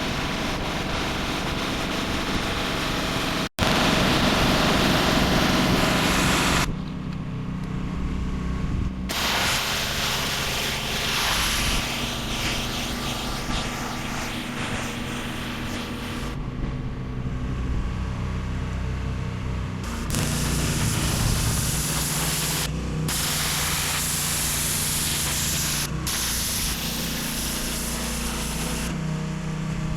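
Pressure washer running, its engine humming steadily under the hiss of the water jet spraying a concrete driveway. The sound changes abruptly at several cuts and drops out for an instant about three and a half seconds in.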